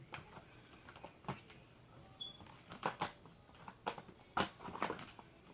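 Irregular plastic clicks and knocks as parts of a Dirt Devil vacuum cleaner are handled and pushed together during assembly, the loudest knock a little past four seconds in.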